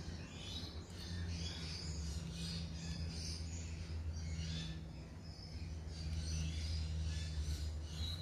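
Faint birds chirping in the background over a steady low hum.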